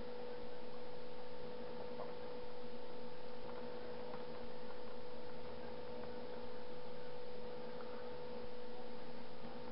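Steady electrical hum that swells and eases evenly about every two seconds, with a few faint taps of a small spoon stirring melted chocolate in a cup.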